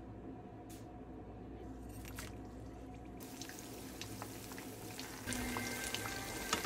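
Cooking oil poured into a wok, then banana turon spring rolls deep-frying in the hot oil: a steady sizzle with small crackles that starts about three seconds in and gets louder near the end.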